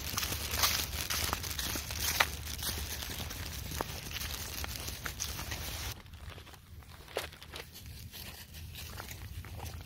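Crunching and rustling of dry leaves and brush underfoot, many small crackles close together, dropping suddenly to a quieter, sparser crackle about six seconds in.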